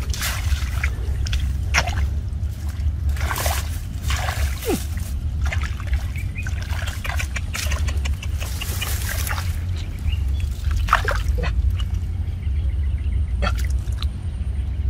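Muddy water sloshing and splashing in short irregular bursts, over a steady low rumble.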